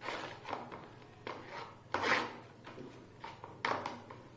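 A spoon scraping and tapping on a crisp khakhra cracker while spreading mayonnaise, in short irregular strokes, the loudest about two seconds in.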